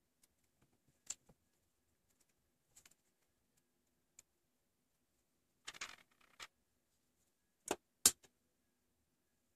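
Faint clicks and rustling of alligator clips and test leads being clipped onto a small circuit board and set down on a desk, then a sharp, louder click about eight seconds in as the bench power supply's toggle switch is flipped.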